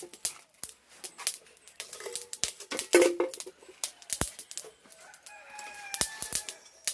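Chickens clucking with a rooster crowing near the end, among sharp clicks and knocks.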